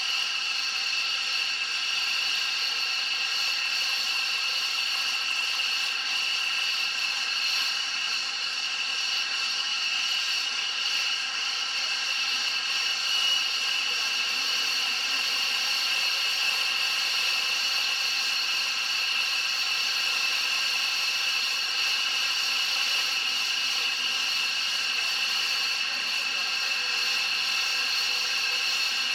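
Jet engines idling on the ground: a steady high-pitched turbine whine of several held tones, unchanging throughout.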